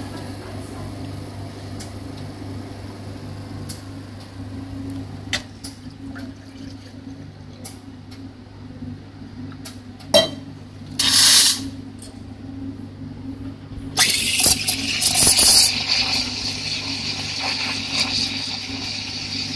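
Commercial espresso machine with a steady hum as a shot pours into the cup. About ten seconds in, a click and a short loud blast of steam as the steam wand is purged; from about 14 s the wand goes into a stainless steel milk jug with a loud hiss that settles into a steady high hiss as the milk is steamed and frothed.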